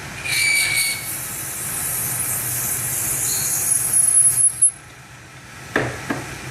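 A 1981 Hardinge HC chucker lathe running, with a steady low hum and a high hiss with a thin whine over it. The hiss and whine stop about four and a half seconds in, and a single knock follows near the end.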